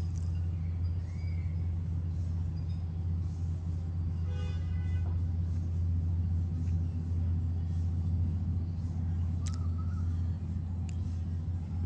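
Steady low rumble of motor vehicles, with a few short high chirps and a brief pitched sound about four seconds in.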